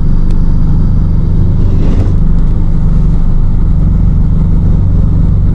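Vehicle driving steadily along a highway: a continuous low engine and road drone.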